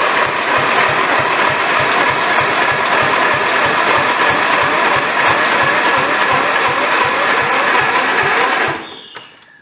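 Lawn tractor's electric starter cranking a small engine that does not catch, with a steady whine over the regular thump of compression strokes. It cuts out near the end as the battery goes dead.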